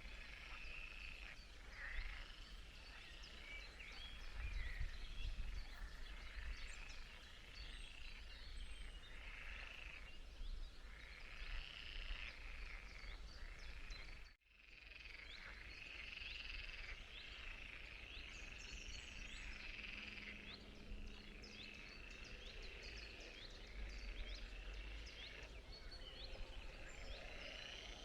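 A chorus of frogs calling over and over, with overlapping calls in a steady run and a faint low rumble underneath; the sound drops out briefly about halfway through.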